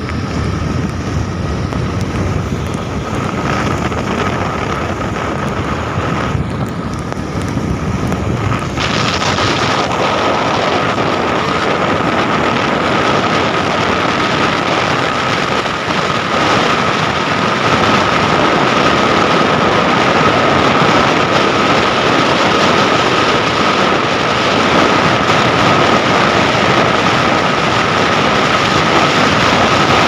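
Wind rushing over the microphone of a moving motor scooter, with road and engine noise under it and a thin steady whine running through. The rush grows louder and brighter about nine seconds in.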